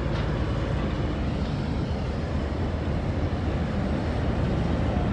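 Heavy diesel machinery running: a wheel loader and dump trucks working nearby make a steady rumble.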